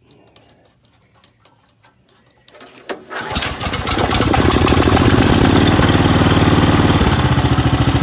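Kohler Command Pro engine on a pressure washer pull-started with its recoil cord, catching on the first pull about three seconds in and then running steadily and loud. It starts again after a new spark plug and ignition coil cured a no-spark fault.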